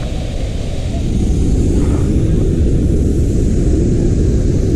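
Steady roar of Athirappilly waterfall: a loud rushing noise, heaviest in a deep rumble with a hiss above, growing louder over the first second or so.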